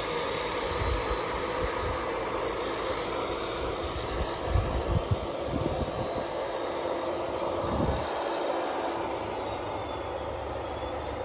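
Vehicle in motion: steady engine and road noise with irregular low bumps. The higher hiss drops away about nine seconds in.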